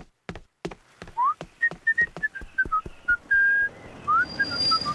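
A man whistling a tune in short notes with a couple of quick rising slides, starting about a second in, over steady walking footsteps.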